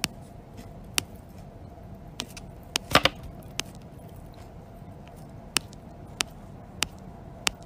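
Scattered short, sharp clicks and taps, about ten of them, the loudest cluster about three seconds in, over a steady low hum.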